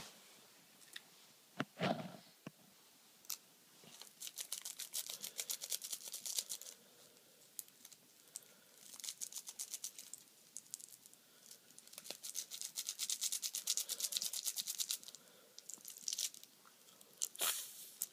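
Roll of Smarties candy tablets being crushed to powder inside its cellophane wrapper: several bursts of rapid crackling and crunching a few seconds long, with single snaps in between.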